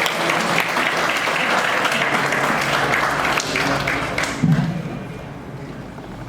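Audience applauding, with the clapping dying away about four and a half seconds in.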